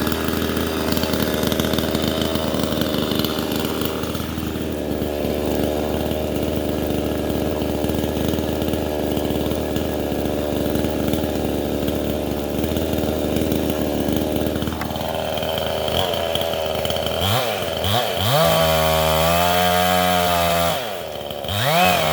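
Vevor 62cc two-stroke chainsaw running steadily under load while cutting through fallen wood. From about three-quarters of the way in, the engine revs up and down several times in quick rises and falls.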